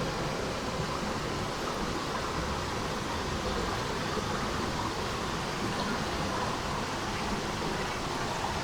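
Steady rushing of water in a mountain stream, an even hiss with no change throughout.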